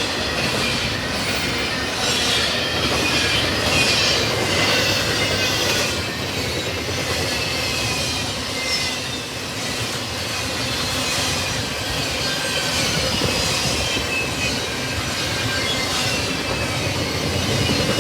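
Double-stack intermodal freight cars rolling past in a steady run of rail noise, with thin, high wheel squeals drifting in pitch.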